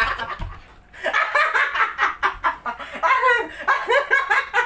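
Two women laughing hard in repeated bursts, with a brief lull just after the start.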